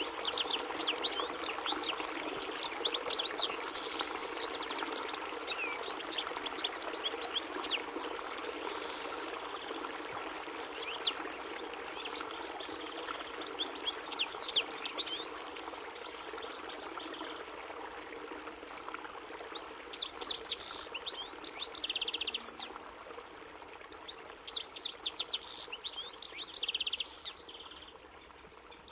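European goldfinch singing: several phrases of rapid twittering chirps and trills with short pauses between them, one with a buzzy note, over a steady background hiss.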